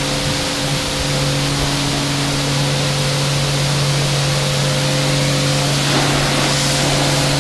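Kärcher K4 pressure washer running with a steady hum while its snow foam lance hisses, spraying foam. The hiss briefly gets louder and harsher about six seconds in.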